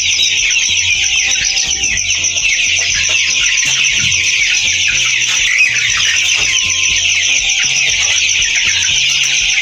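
A dense, continuous peeping of a large flock of young chickens, about 25 days old. Background music with a steady bass line runs underneath.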